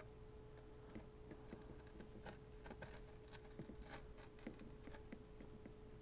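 Hobby knife blade scraping and picking at the rim of a paper speaker cone, a scatter of faint small clicks and scratches. A faint steady hum runs underneath.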